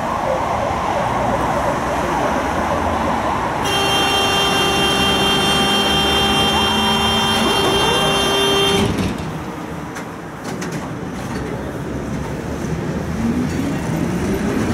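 Tram car at a stop: a steady buzzing warning tone sounds for about five seconds from about four seconds in, the door-closing signal, and cuts off suddenly. Near the end the traction motors whine, rising in pitch as the tram pulls away.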